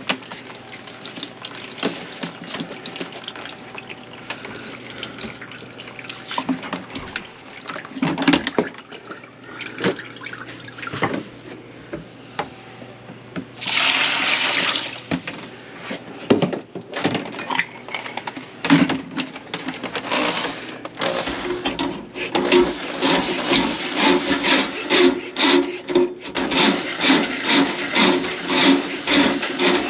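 Water splashing and running in a kitchen sink, with knocks and clatter, and a loud gush for a couple of seconds near the middle. About two-thirds through, a machine starts a fast, even rhythmic clatter that keeps going.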